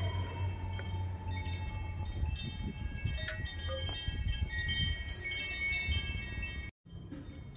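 Wind chimes ringing, many high metallic tones struck at irregular moments and overlapping as they ring out, over a low steady hum. The sound drops out for a moment near the end.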